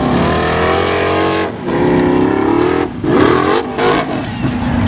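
Formula offroad buggy's engine revving at full load as it claws up a steep sand hill. The revs climb in surges that drop out briefly about a second and a half in and again near three seconds, then pick up again.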